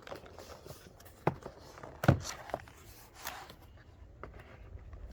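Handling noise from a set of Torx screwdrivers and their packaging: a few sharp knocks, the loudest about two seconds in, among light rustling.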